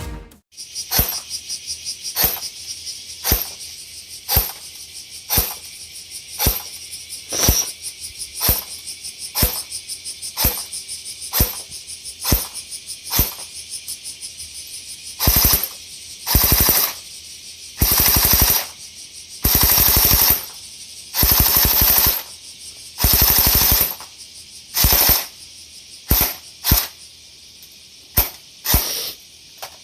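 BOLT M16A4 electric airsoft gun (AEG) firing, a test after repair: about a dozen single shots roughly one a second, then a series of short full-auto bursts in the second half.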